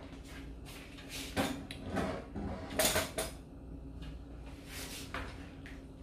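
Kitchen clatter: a run of clicks and clunks as a bottle, a small jar and other items are handled and set down on a wooden table, loudest about three seconds in, with a few lighter knocks near the end. A steady low hum runs underneath.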